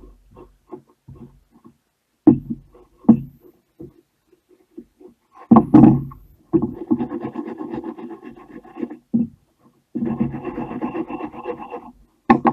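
A few scattered knocks, then two spells of a wire brush scrubbing rusty steel pliers in quick back-and-forth strokes, each lasting two to three seconds.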